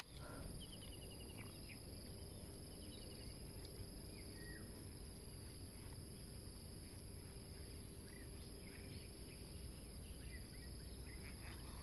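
Quiet outdoor ambience: a faint, steady high-pitched insect drone, with a few faint bird chirps, one a quick run of ticks about a second in.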